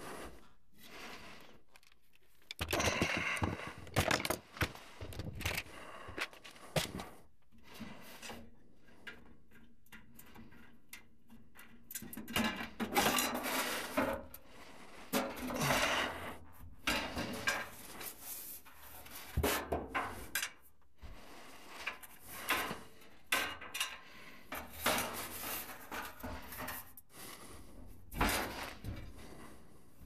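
Irregular knocks, clicks, scrapes and rustles of a person handling tools and panels while working at a gas furnace, coming in clusters with quieter gaps between.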